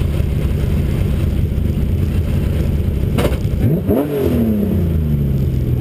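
BMW E21 rally car's engine idling loud and rough while the car waits stationary, heard from inside the car. A bit over three and a half seconds in, the throttle is blipped once: the revs rise briefly, then fall back slowly to a steady idle. Just before the blip there is a short sharp click.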